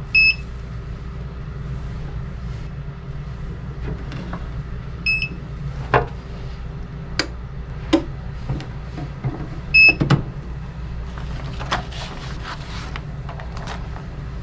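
British Seagull two-stroke outboard motor running steadily after being started, with scattered clicks and a short high double beep three times, about every five seconds.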